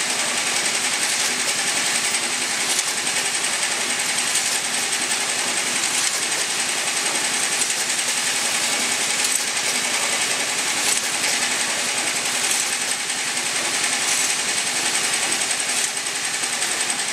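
Automatic vial filling and capping machine running steadily: a dense mechanical clatter with a steady high-pitched whine and faint clicks every second or two.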